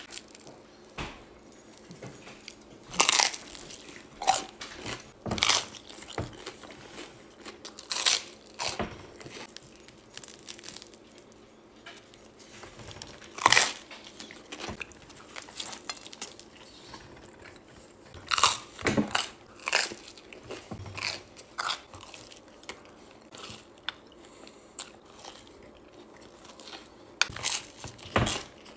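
Crunchy food being bitten and chewed in irregular loud crunches, with quieter chewing between them.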